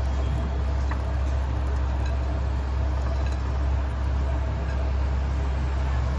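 A steady low mechanical hum with a hiss over it, unchanging throughout.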